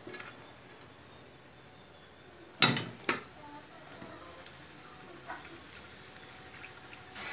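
Two sharp metal clinks about half a second apart, a spoon knocking against a stainless steel bowl, with a fainter clink a couple of seconds later.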